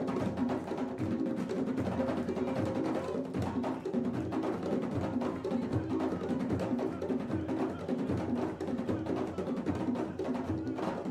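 Music with a steady drum and percussion beat under sustained pitched notes.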